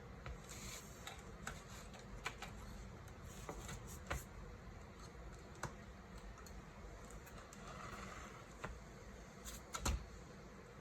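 Scattered light clicks and taps from hands working on a graphics card opened for disassembly, at its small wire connectors; the loudest is a quick double click near the end.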